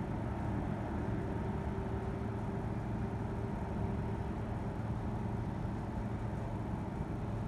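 Steady low rumble of distant jet airliner engines, with a faint steady whine for a few seconds in the first half.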